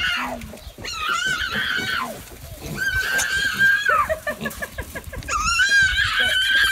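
A toddler squealing shrilly while running, three long held squeals, with piglets scampering around her.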